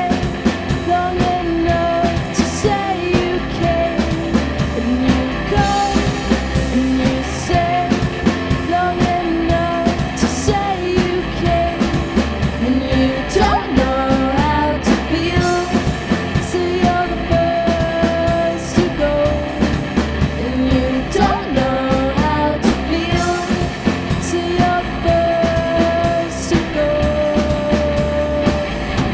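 A live band performing a song, with a sung vocal melody over instruments and a steady drum beat.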